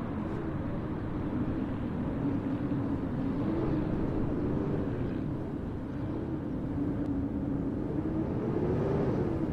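Steady city street-traffic rumble with a low wavering hum that rises slightly near the end.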